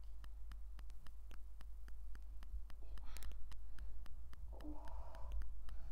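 Steady fast ticking, about four ticks a second, with a brief clatter of plastic Lego pieces about three seconds in.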